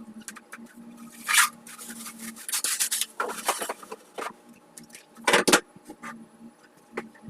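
Irregular rubbing and scraping in short bursts, with a few sharp clicks and a louder burst about five seconds in.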